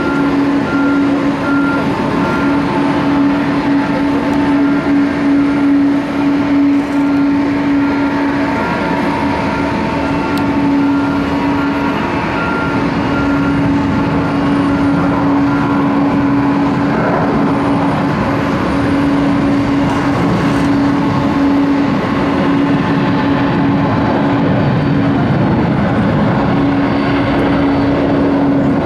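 Jet airliner engines running: steady, loud engine noise with a constant low hum and fainter higher whine tones.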